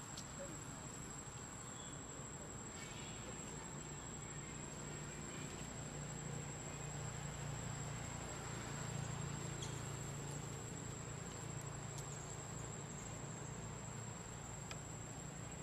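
Steady, unbroken high-pitched insect drone over a low, steady hum, with a few faint clicks.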